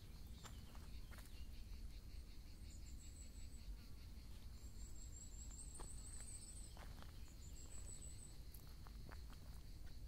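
Footsteps crunching on dry leaf litter and twigs while walking through scrub, scattered and irregular, over a steady insect chirring with short, very high trills every few seconds.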